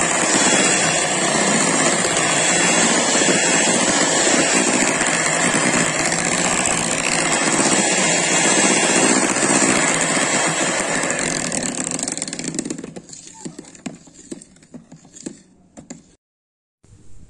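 Electric hand mixer running steadily, its beaters whipping cream with cocoa powder in a bowl. It stops about twelve seconds in, leaving a few faint knocks.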